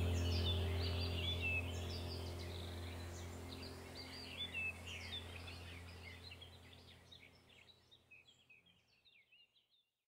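Birds chirping over a low steady hum, the whole sound fading out gradually until it cuts to silence near the end.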